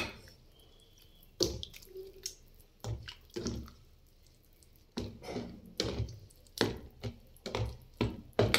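Steel spoon stirring a runny dal-and-semolina batter in a steel bowl: wet sloshing and squelching in irregular strokes, with a short pause about four seconds in.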